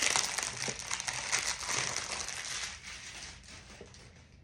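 Paper packaging crinkling and rattling as a perfume box is unwrapped, a dense crackle of small clicks that fades out over the last second or so.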